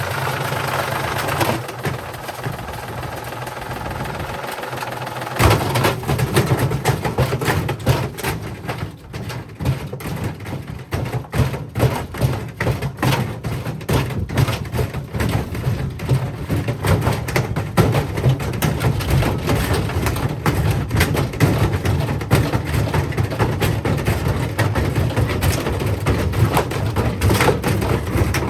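Indesit washing machine running with bricks in its drum. About five seconds in, the drum speeds up and the bricks set up a continuous rapid banging and clattering over the machine's running noise.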